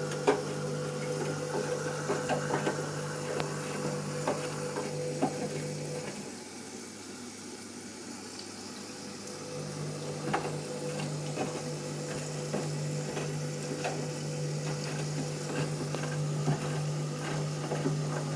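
Candy washing machine running its cottons pre-wash: a steady hum with water sloshing and light clatter in the drum. The hum stops for about three seconds around six seconds in, then starts again.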